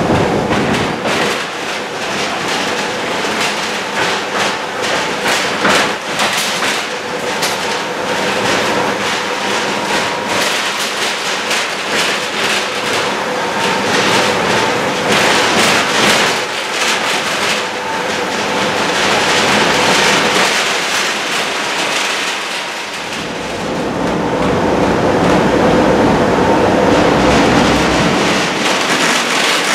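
Tatra T3 tram heard from inside the passenger saloon while running: steady running noise with a faint steady whine, full of rattling from the car body and knocks and clatter from the wheels over rough, badly worn track. The noise swells louder twice.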